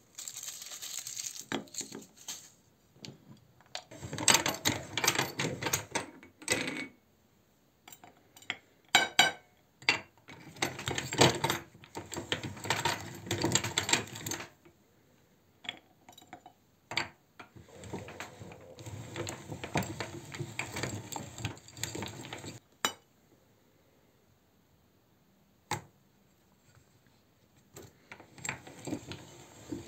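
Foil wrappers crinkling as chocolates are unwrapped, then stretches of clinking and knocking from handling ceramic plates and a cast-metal hand meat grinder as it is set up and loaded with chocolate, in several bursts with quiet gaps between.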